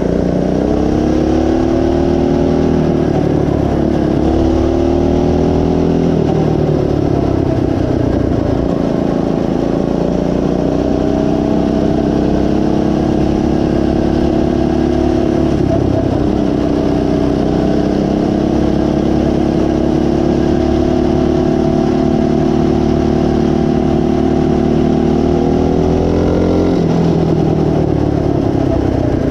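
Coleman CT200U minibike's single-cylinder four-stroke engine running under load on the road. The revs rise and fall a few times in the first several seconds, then hold steady at cruising speed with a brief dip midway, and drop near the end as the bike slows.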